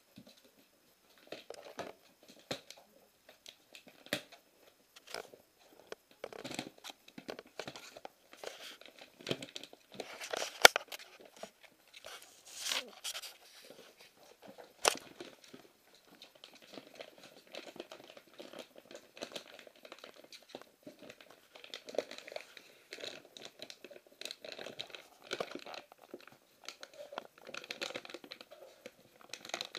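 Siberian husky puppies biting and tearing at crinkly plastic wrapping: irregular rustling and crackling, with a few sharp snaps, the loudest about ten seconds in.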